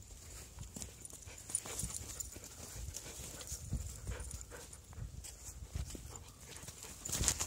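A dog running on loose sand, heard up close: soft, irregular paw thuds with panting.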